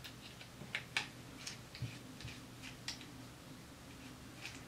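Small, irregular clicks and ticks of a hex driver and a small screw working against a nylock nut on a plastic drone frame, over a faint steady hum.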